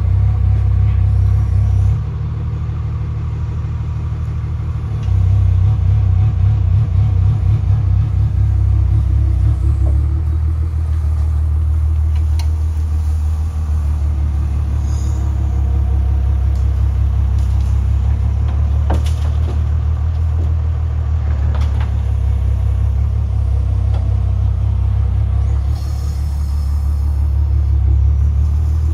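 Daewoo DH 130-2 crawler excavator's diesel engine running under working load while the boom and bucket move, a steady low drone that eases about two seconds in and swells again about five seconds in. A few faint knocks sound over it.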